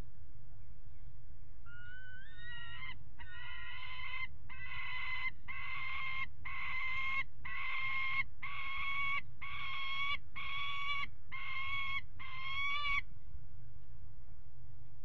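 Peregrine falcon calling: a run of a dozen or so drawn-out calls, about one a second, the first two rising in pitch.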